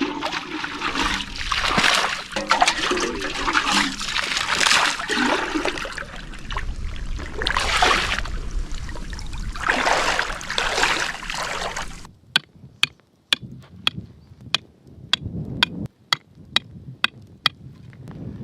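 Seawater sloshing and splashing as a container is filled from the rising tide, in uneven swishes. About twelve seconds in the water stops, and a run of sharp clicks follows, about two a second.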